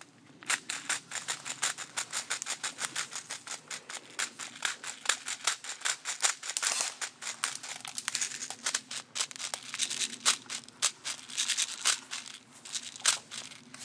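A rapid, uneven series of sharp clicks and snaps, about four or five a second, starting about half a second in and going on without a break.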